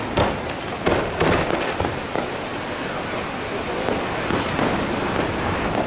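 Fireworks display: a few sharp bangs of bursting shells in the first second and a half, then a steady, dense crackle.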